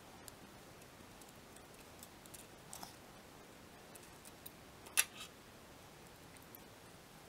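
Faint, scattered metal clicks and ticks of a hex key working the socket-head screws of a steel flange on a milling-machine knee shaft, as the screws are loosened and the flange is taken off. A sharper metal clink comes about five seconds in.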